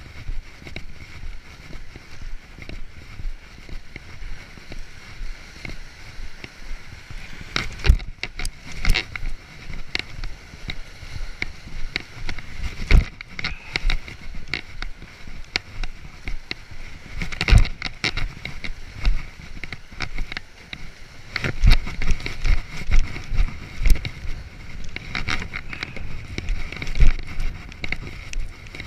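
Wind buffeting the microphone, with waves washing against the breakwater rocks, while walking on a concrete breakwater; a few sharp knocks stand out now and then.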